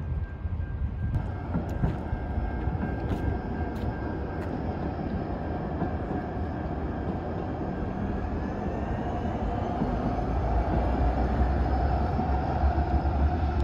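CTrain light-rail train running past, its wheels and motors making a steady hum and rumble that grows louder toward the end, with a brief rising whine about two-thirds through, mixed with road traffic.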